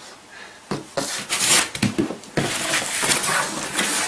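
White foam packing pieces rubbing and scraping against a cardboard shipping box as they are pulled out by hand, with a few light knocks. The handling starts after a brief quieter moment, about a second in.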